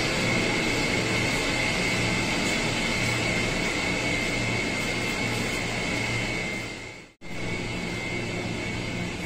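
Steady mechanical drone of parked electric commuter trains, a low hum under a high steady whine. It breaks off for an instant about seven seconds in and resumes slightly quieter.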